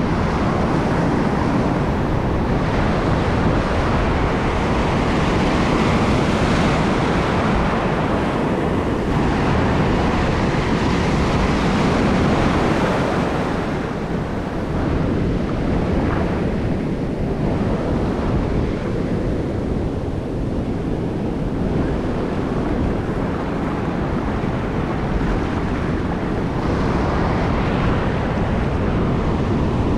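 Ocean surf breaking and washing up the sand in a steady, continuous rush, with wind blowing on the microphone.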